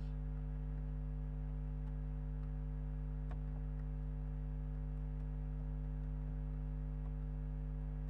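A steady low electrical hum throughout, with a few faint keyboard clicks as text is typed.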